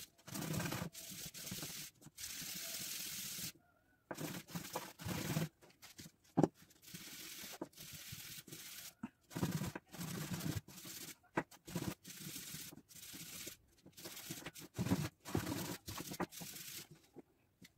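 Epoxy resin ring being sanded by hand on a sheet of sandpaper: a rasping scrape in uneven back-and-forth strokes with short pauses between them.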